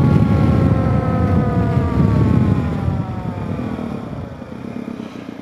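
Suzuki DRZ400S single-cylinder dual-sport motorcycle riding at highway speed, with a heavy low rush of wind and road noise and a whine that falls slowly in pitch. Everything fades over the last couple of seconds as the bike eases off and slows.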